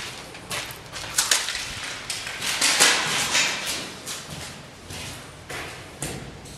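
Footsteps crunching and scuffing over plaster debris and grit on a bare floor, a run of irregular crunches, loudest in the middle.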